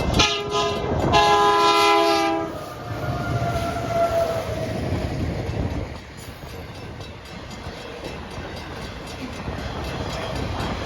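Freight train locomotive's air horn sounding two blasts of several notes together, the second a little longer, then the steady rumble and clatter of the train passing, dropping in level about six seconds in.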